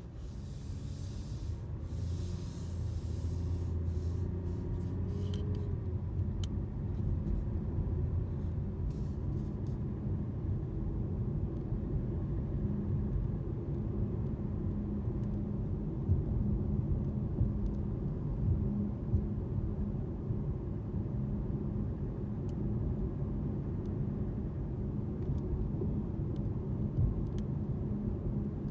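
2017 Jaguar XJR driving, with steady low road noise and a steady low hum; the pitch rises over the first few seconds as the car gathers speed. The hum is the car's unexplained fault: it appears from about 18 mph, changes pitch with the road surface, and is not affected by braking, turning or the AC.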